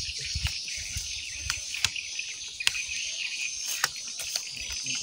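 Steady high-pitched insect chorus, with a few short sharp clicks scattered through.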